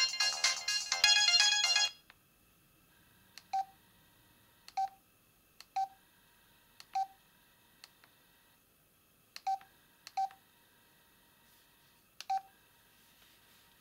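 Samsung SGH-L760 mobile phone ringtone melody playing, then stopping abruptly about two seconds in. Then come seven short, single-pitch keypad beeps at irregular intervals of about a second, each with a faint key click, as the phone's buttons are pressed.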